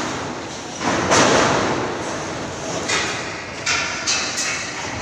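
Dull thuds and noisy rumbling from the shed's corrugated metal roof sheeting as it is worked on, loudest about a second in, with a few more sudden knocks after.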